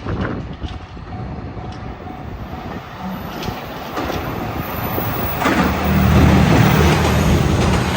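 A train approaching and passing over a level crossing. Its running rumble builds and is loudest in the last two or three seconds, with a low drone under it.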